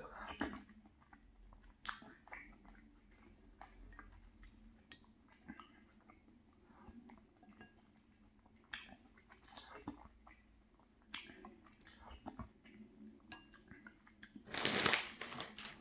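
Close-miked chewing and mouth sounds of someone eating gumbo, with small spoon clicks against a glass bowl. Near the end, a loud crinkling of a plastic snack bag.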